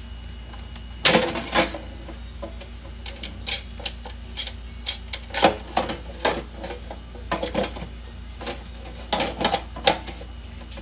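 Irregular clicks and knocks from a Cosori Pro air fryer's basket being pulled out and handled, with the loudest knock about a second in and clusters of clicks after it, over a steady low hum.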